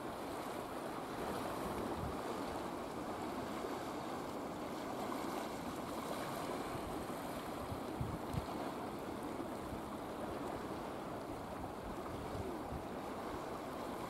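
Steady wash of small waves lapping in shallow estuary water, an even hiss with no bird calls standing out. Two faint low thumps come about eight seconds in.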